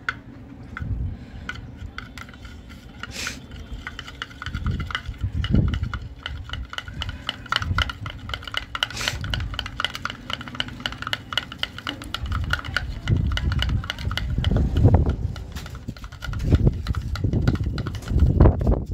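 Metal spoon stirring and scraping a slime mixture in a glass dish, with frequent small clicks of the spoon on the glass and repeated low thumps.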